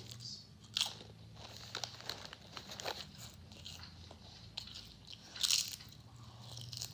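Potato chips being bitten and chewed: a series of sharp crunches, the loudest about five and a half seconds in, with quieter chewing crackle between them.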